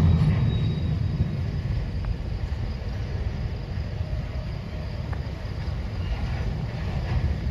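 Freight train's covered hopper cars rolling past, their steel wheels on the rail making a steady low rumble with a few faint clicks.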